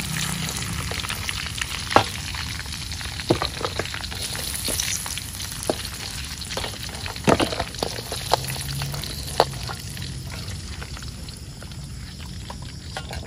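Wild boar rib pieces sizzling as they fry in their own rendered fat in a wok. A metal ladle clinks and scrapes against the pan now and then as the excess oil is scooped out. The sizzling eases somewhat near the end.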